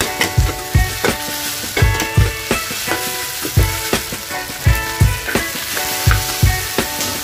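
Curry paste, lemongrass and garlic sizzling in hot oil in a wok, a metal spatula stirring and scraping with repeated knocks against the pan; raw chicken pieces are tipped in near the end.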